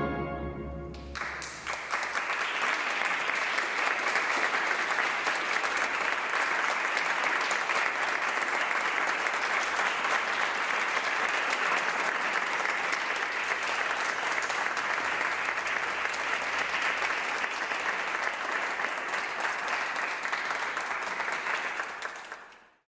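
The last chord of a brass ensemble dies away in the first second, then an audience applauds steadily. The applause fades out quickly near the end.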